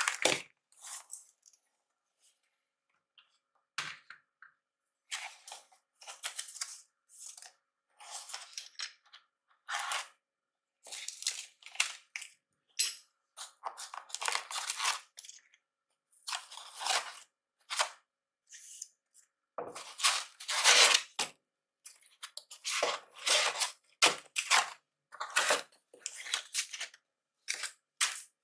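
Packaging being handled: short bursts of rustling, tearing and scraping from packing tape, a cardboard box and foam packing, broken by brief silent gaps.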